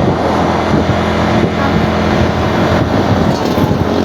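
A bus engine running steadily, with road and wind noise.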